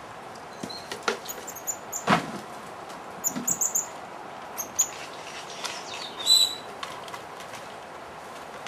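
Short, very high-pitched animal chirps: a quick run of them a little past three seconds in and a louder one about six seconds in, with a few sharp taps in between.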